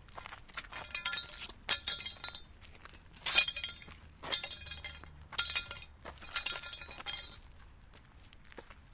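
Small hard objects clinking and rattling together in a series of short handled bursts, each a cluster of sharp clicks with brief high ringing, dying away near the end.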